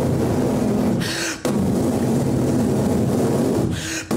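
A man's voice making a continuous low rumbling sound effect into a microphone, imitating a horse bolting off at a gallop. It breaks twice for quick breaths, about a second in and near the end.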